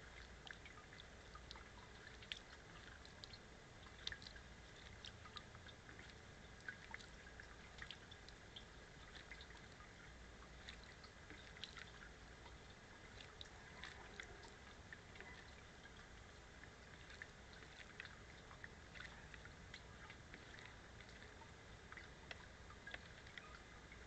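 Faint, scattered splashes and drips of water as an American robin bathes in a shallow bird bath, short irregular ticks every second or so.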